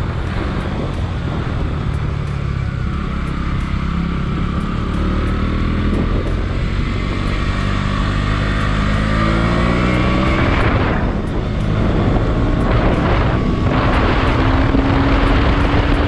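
KTM Duke 200's single-cylinder engine under acceleration while riding, with wind rushing past. The revs climb, dip briefly about eleven seconds in at an upshift, then climb again.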